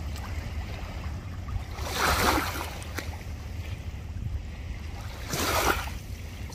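Small waves washing in shallow water against a rock at the shoreline, swelling twice, about two seconds in and again near the end, over a steady low rumble.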